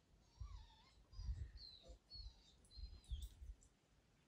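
Faint songbird song: a run of short, slurred whistled phrases repeated every half second or so, stopping about three and a half seconds in, with soft low rumbles on the microphone beneath.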